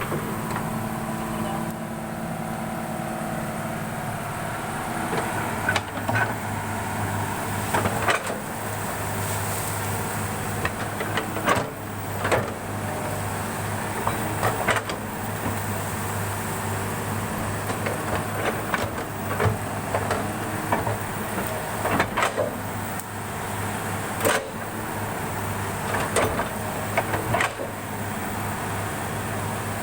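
Excavator's diesel engine running steadily, with irregular sharp knocks and clanks every second or few.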